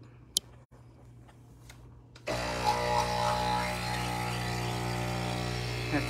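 Nespresso Pixie capsule espresso machine's pump starting about two seconds in and running with a steady buzzing hum as it pushes water through a capsule to brew an espresso.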